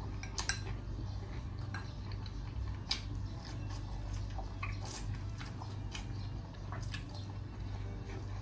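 A person chewing a mouthful of pineapple sweet-and-sour pork, with scattered light clicks of tableware, over a steady low hum.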